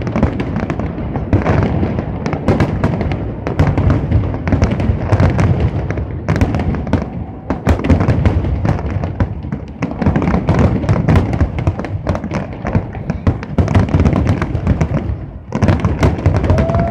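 Fireworks display: aerial shells bursting in a rapid, continuous barrage of bangs and dense crackling, easing briefly about fifteen seconds in before picking up again.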